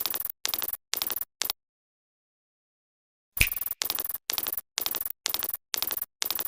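A short, noisy, gritty sound effect, each burst about a third of a second, repeated about twice a second: four times, then after a two-second pause about eight times more.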